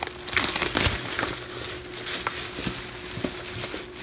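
Clear plastic wrapping bag crinkling and crackling as it is pulled off a backpack. The rustling is loudest about half a second to a second in, then goes on as scattered smaller crackles while the plastic is bunched up.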